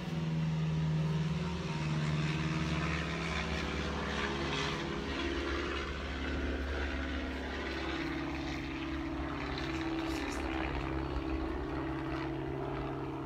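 A steady engine drone, its low pitch drifting up and down slowly.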